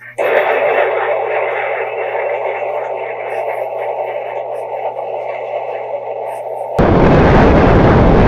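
Wind and road noise recorded by a pocket action camera riding along a highway. It plays first through laptop speakers, thin and narrow, then about seven seconds in switches abruptly to the camera's own recording, louder and fuller, with heavy wind buffeting on the microphone.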